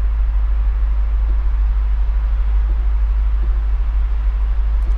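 Lexus LC500's 5.0-litre V8 idling, a steady low rumble heard from inside the cabin, with a faint even hiss above it.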